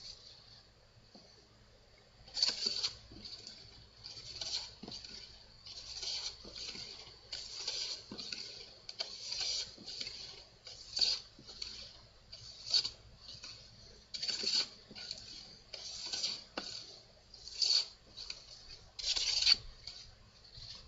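Hand plane taking shavings off a wooden workbench leg, one swishing stroke about every one and a half to two seconds, with lighter strokes between.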